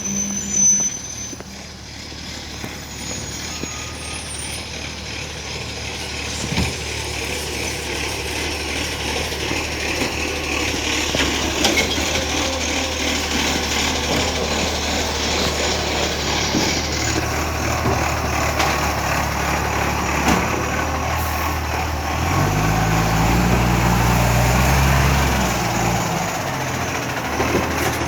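Iveco ACCO side-loader garbage truck running, growing steadily louder over the first several seconds, then its engine revs up well past halfway through and settles again near the end.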